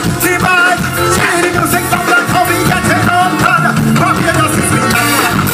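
Live soca music from a band on stage, played loud through the PA, with a singer's voice over the band.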